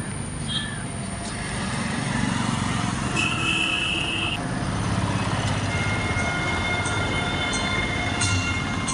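Steady rumble of road traffic and vehicle engines, swelling after about a second and a half, with a short high-pitched tone a little past three seconds in.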